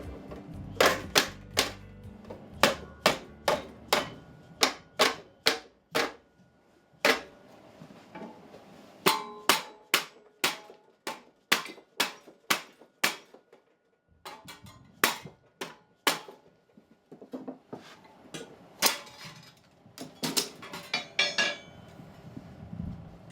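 Hammer blows on sheet metal, sharp ringing strikes coming about one to two a second with a few short pauses, as the metal is worked into a bend along its bend line.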